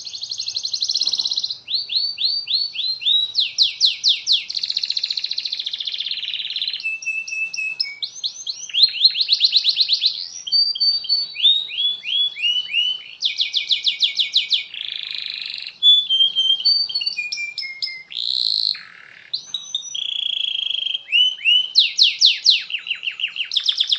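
Domestic canary singing a long, loud, unbroken song, chaining fast trills of rapidly repeated notes, buzzy held rolls and falling slurred notes, one phrase after another with barely a pause.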